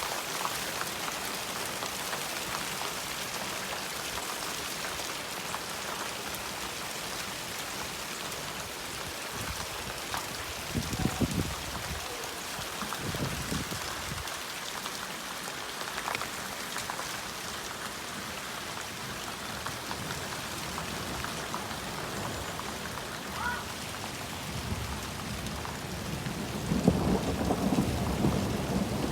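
Heavy rain and hail falling steadily, a dense hiss full of small ticking impacts. Thunder rumbles briefly twice, about eleven and thirteen seconds in, and a louder, longer rumble of thunder builds near the end.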